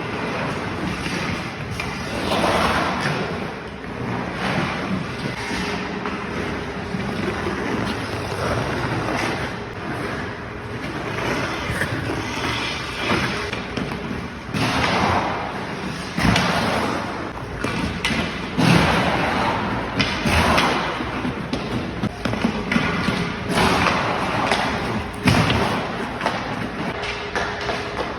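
Ice skate blades carving and scraping on rink ice in repeated sweeping strokes, with occasional sharp thuds.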